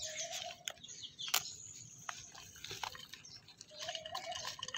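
Thin plastic nursery pot crinkling and crackling in irregular clicks as it is squeezed to loosen a seedling's root ball, with soil rustling.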